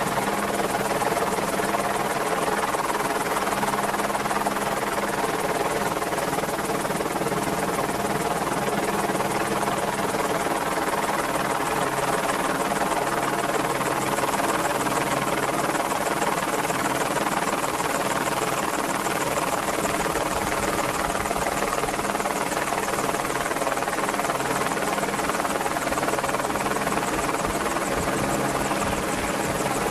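Merlin helicopter running steadily: a continuous drone of rotor and turbine-engine noise that holds the same level throughout, with steady pitched tones over a rushing hiss.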